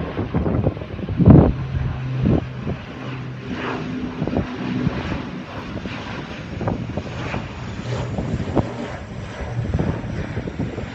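ATR 72 twin-turboprop airliner landing, its propellers making a steady low drone. Wind gusts buffet the microphone throughout, the strongest about a second in.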